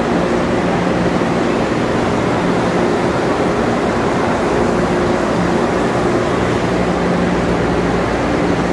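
Steady, loud drone of large overhead cooling fans with a low constant hum, over the general noise of a big crowd on foot.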